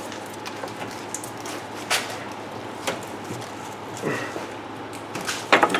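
A few light clicks and knocks of hands and tools working metal brake lines and suspension parts under a car, over a steady low hum, with a cluster of sharper clicks near the end.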